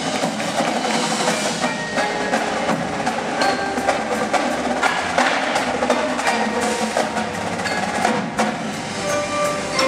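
Indoor percussion ensemble playing: marching snare, tenor and bass drums with fast dense strikes, over marimbas and other mallet keyboards.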